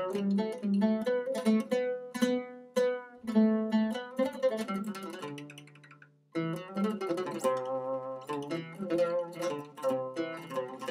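Oud played solo, a quick run of plucked notes. The phrase dies away about six seconds in, and a new phrase starts suddenly.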